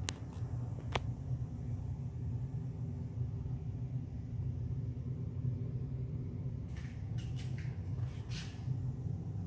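Steady low rumble, with a sharp click near the start and another about a second in, and a few brief hissy rustles near the end.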